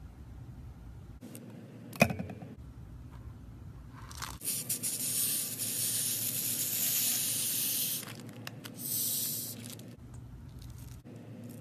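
A sharp snip about two seconds in as scissors cut into a stress ball, then a loud hiss for about three and a half seconds as white foam is squeezed out of a cut stress ball, followed by a second, shorter hiss.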